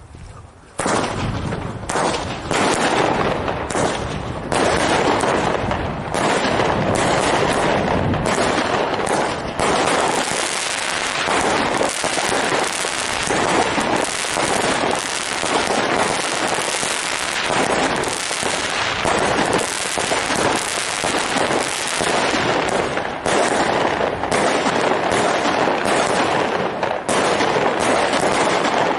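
Klasek Signature Range 49-shot firework cake firing. Rapid launches and bursts follow one after another, starting about a second in and going on almost without a break.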